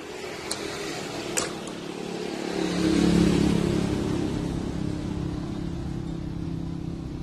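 A motor vehicle's engine running, swelling to its loudest about three seconds in and then slowly fading, as a vehicle passing. Two sharp clicks come in the first second and a half.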